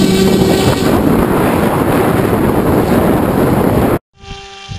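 Easy Star II RC plane's electric motor and pusher propeller buzzing under power, with loud wind rushing over the onboard camera's microphone. About four seconds in the sound cuts off abruptly, and a quieter, steady propeller buzz follows.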